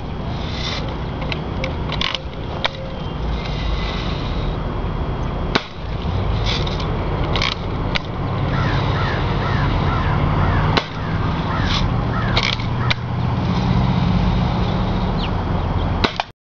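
Daisy Red Ryder BB rifle being lever-cocked and fired: a series of sharp clicks and snaps spread through the clip over a steady low rumble. A bird calls in a quick run of short chirps around the middle.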